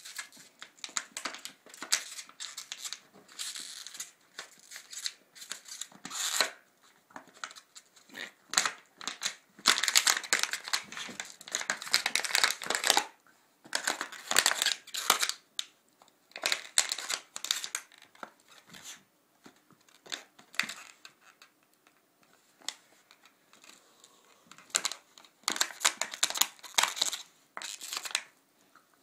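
Nova Scotia duck tolling retriever chewing and tugging at a plush toy, in irregular bursts of scratchy noise with short pauses between them.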